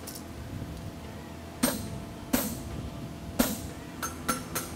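Hammer blows on a steel horseshoe over the anvil, each with a short metallic ring. Three single strikes come about a second apart, then a quicker run of about three strikes a second near the end.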